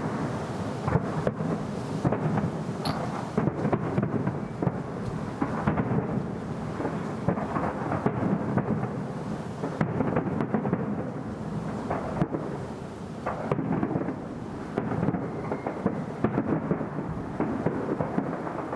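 Fireworks display: many shell bursts booming one after another, overlapping into a continuous rumble.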